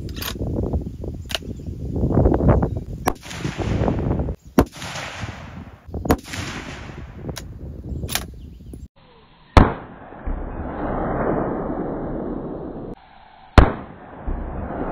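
Rifle shots from a 6.5 Creedmoor bolt-action, sharp cracks repeated through the span, with the two loudest about four seconds apart near the end. Wind rushes on the microphone between shots in the first half.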